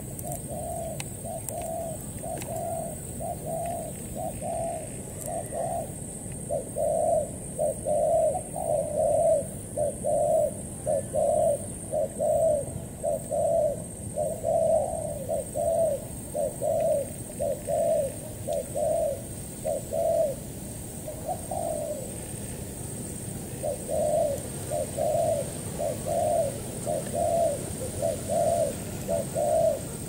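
Spotted dove cooing: a long run of short, evenly spaced coo notes, about one and a half a second, with brief pauses about five seconds in and about twenty-two seconds in.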